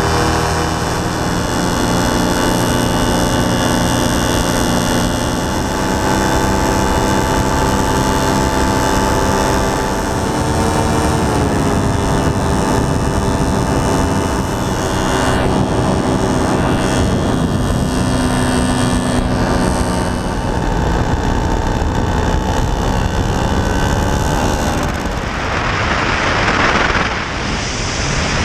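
Paramotor's engine and propeller running steadily in flight, a steady many-toned drone that dips slightly in pitch about eleven seconds in. Near the end, a rush of wind over the microphone.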